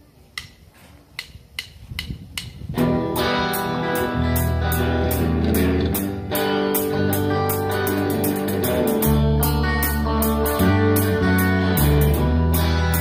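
A rock band's instrumental song intro: a steady light ticking, about three a second, then about three seconds in electric guitars and bass guitar come in together, the bass holding long low notes under the guitar chords.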